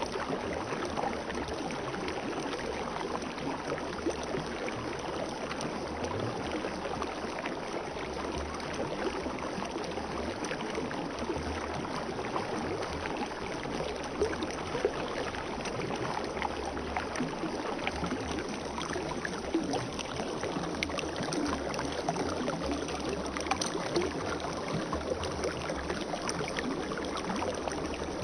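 Spring water flowing steadily, a continuous babble with many small splashes.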